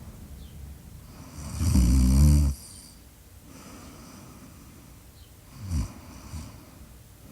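Snoring: one loud, fluttering snore about a second and a half in, lasting about a second, then two short, weaker snores near the end, with quiet breathing between.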